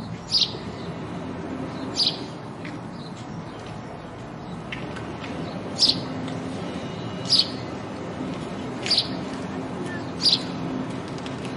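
House sparrow chirping: six loud, short, high chirps about one and a half seconds apart, with a few fainter chirps between them, over a steady low hum.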